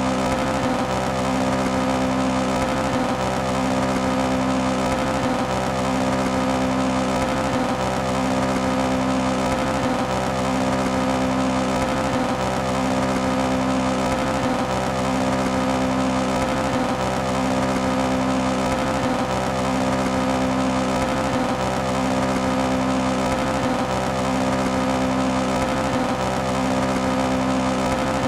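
Toyota AE86's four-cylinder engine running steadily at constant revs, with a pattern in its tone that repeats evenly about every two seconds.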